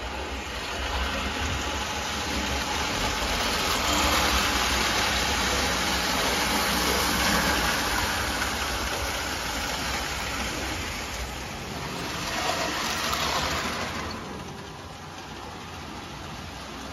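Tinplate toy train running on three-rail tubular steel track: wheels rumbling and clattering with the electric motor whirring. It swells as the train passes close and falls away about fourteen seconds in.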